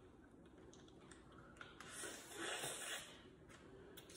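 Faint eating sounds: scattered light clicks and crackles of snow crab shells being handled and picked, with a breathy hiss about two seconds in that lasts about a second.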